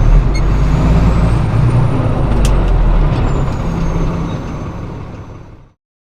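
Diesel engine of a flatbed straight truck running steadily with a low rumble, then fading out to silence about five and a half seconds in.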